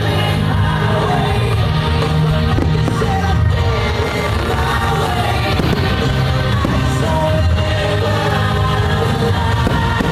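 Rock music with a singing voice, loud and steady throughout.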